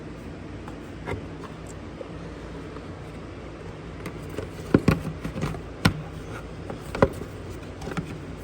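Air box cover being fitted back over the air filter housing of a skid steer: scattered knocks, clicks and scrapes as it is pushed and worked into place, the loudest about five, six and seven seconds in, over a steady low hum.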